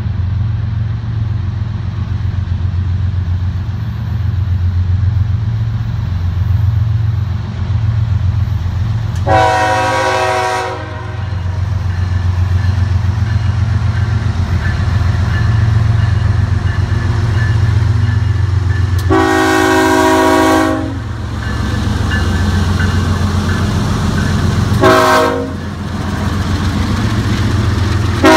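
CSX freight train's diesel locomotives running in a steady low rumble as they approach and pass. The lead unit's multi-chime air horn sounds two long blasts and then a short one, the grade-crossing signal.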